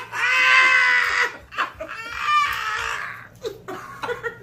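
People laughing hard. It starts with a long, high-pitched squeal of laughter about a second long, then breaks into fluttering cackles and fades near the end.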